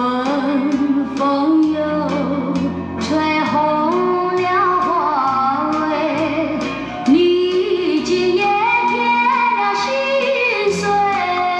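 Music: a woman singing a slow melody with a wavering vibrato over steady bass notes and light percussion.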